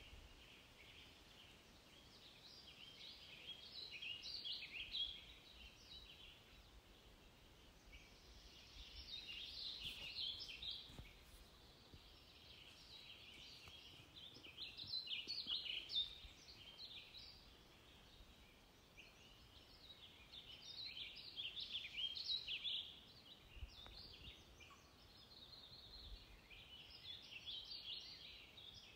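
Faint bird chirping in flurries of a few seconds, returning about every six seconds over a quiet background hiss.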